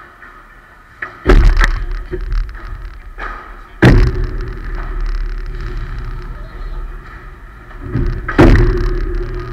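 Padel rally: three loud ball strikes, about a second, four seconds and eight and a half seconds in, each followed by a low booming echo in the hall.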